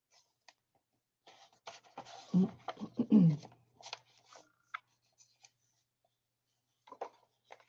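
Paper handling: a card tag slid into a paper pocket in a handmade journal, with pages rustling and light scrapes and clicks. Two short low sounds, each falling in pitch, stand out as the loudest, about two and three seconds in.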